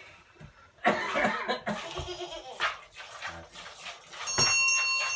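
Goats bleating: a loud bleat about a second in, then shorter calls after it. A steady high ringing tone starts near the end.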